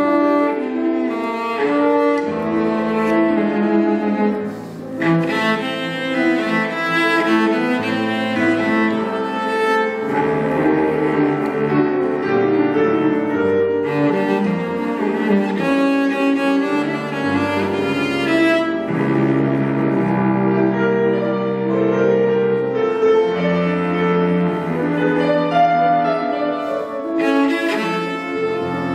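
Cello and grand piano playing a classical duo piece, the cello bowing sustained low notes over the piano accompaniment, with a brief pause in the phrasing about five seconds in.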